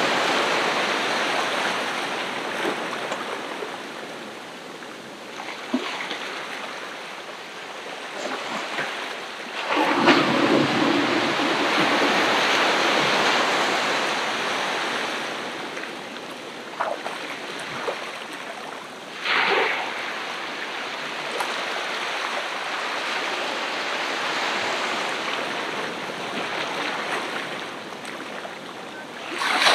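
Ocean surf breaking and washing up the beach in repeated swells. The biggest surge comes about a third of the way in, a shorter, sharper one a little past the middle, and another at the end.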